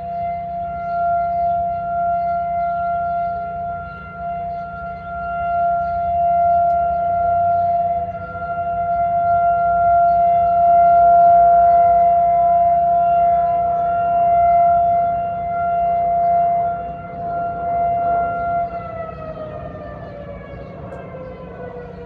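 Outdoor civil-defense warning sirens sounding a steady tone in a siren test, swelling and fading every few seconds. About three-quarters of the way through they begin winding down, the pitch falling steadily.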